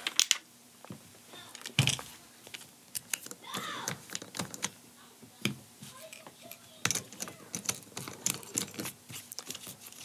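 Camera quick-release mount parts and a camera body being handled: irregular small clicks, clacks and knocks of metal and plastic, as the camera is set down on the desk and the mount is worked on the tripod head.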